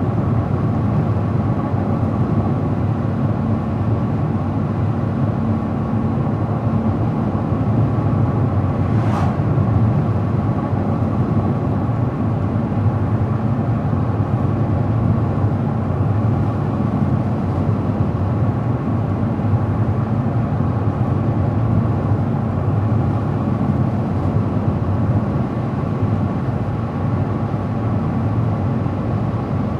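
Car driving at steady speed: a constant low rumble of engine and tyres on the road, with a faint brief tick about nine seconds in.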